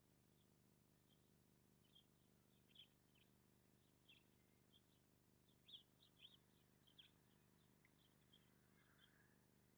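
Faint chirps of small songbirds, many short separate calls scattered throughout, over a steady low hum.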